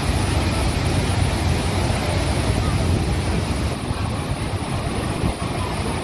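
A large waterfall in heavy flow: a steady, loud rushing roar of falling water, heaviest in the low rumble.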